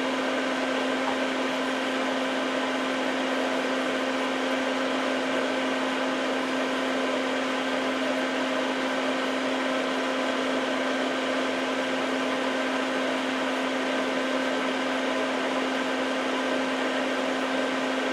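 Steady drone of a running electric appliance: an even hiss with a constant low hum that does not change.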